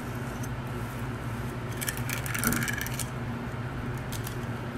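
Kitchen knife cutting through a skipjack tuna, the blade scraping and clicking along the backbone in a burst about two seconds in, over a steady low hum.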